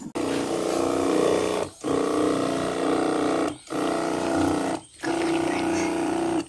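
Motorized knapsack sprayer's pump humming steadily at one pitch while spraying, cut off briefly three times.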